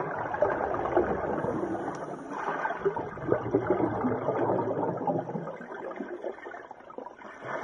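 Underwater pool sound heard through a submerged camera: dense bubbling and crackling of air bubbles, such as scuba divers exhale, growing quieter in the last couple of seconds.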